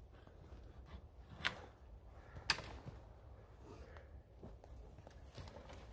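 Large knife striking a thin wooden pole as branches are trimmed off: two sharp knocks about a second apart, the second the louder, then a few faint taps.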